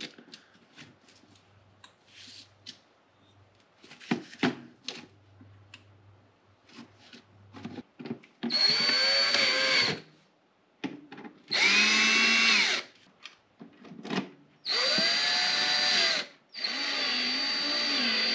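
Cordless drill-driver run in four short bursts of one to two seconds each, driving screws into the heater's housing. Its whine rises as it spins up and drops as the trigger is let go. A few light clicks and handling knocks come before the first run.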